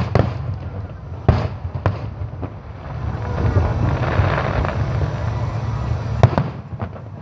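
Aerial fireworks going off: sharp bangs at the start, about a second in, just before two seconds and again near six seconds, with a stretch of crackling in between, over a steady low rumble.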